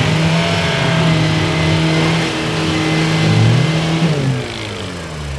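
Off-road 4x4 race vehicle's engine held at steady high revs, then the revs dropping away about four seconds in as the sound gets quieter.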